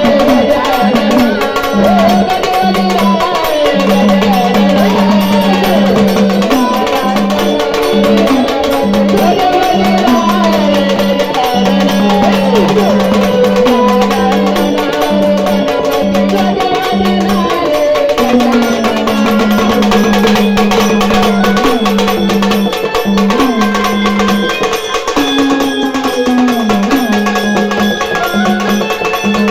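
Marathi gondhal devotional song: a voice singing a gliding melody over hand-drum percussion, with a held low note that repeatedly breaks off and comes back in.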